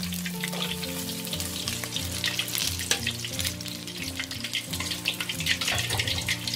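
Slab of pork belly deep-frying in hot oil in a wok: a dense, steady crackling and spattering.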